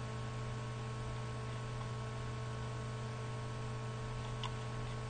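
Steady low electrical hum with hiss from the recording's microphone setup, with one faint click about four and a half seconds in.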